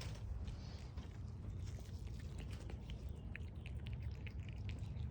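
A cat chewing dried catnip leaves: scattered small crunchy clicks over a steady low background rumble.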